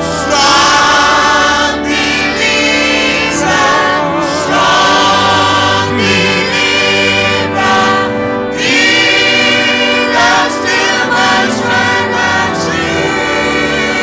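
Gospel choir singing with instrumental accompaniment: long held, wavering sung notes over sustained chords and bass.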